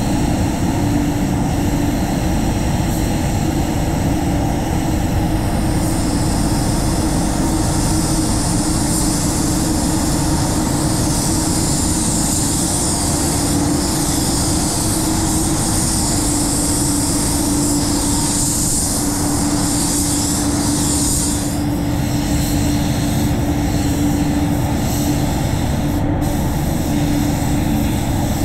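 A gravity-fed HVLP spray gun hisses for about fifteen seconds as it lays clear coat on a car panel, then cuts off when the trigger is released. Under it, the paint booth's air extraction rumbles steadily with a constant hum.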